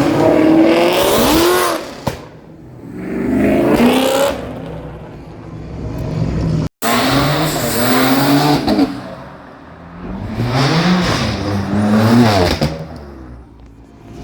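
Car engines revving hard in about four bursts, each climbing in pitch and then falling away, with a sudden break about seven seconds in.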